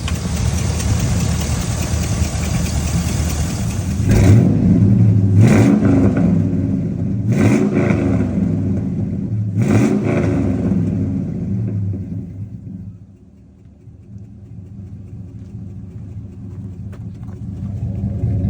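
Chevy 6.0-litre V8 truck engine running and revved about four times in quick succession, each rev rising and falling. It then drops back to a lower, quieter running sound.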